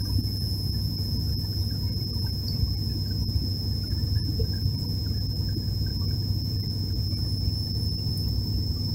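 Steady cabin drone of an ATR 72's twin turboprop engines and propellers in flight: a deep, even hum with a thin high whistle held over it.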